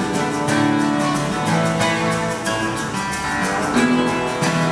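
Two acoustic guitars strummed together with bongos, playing a song live, with regular strokes keeping a steady beat.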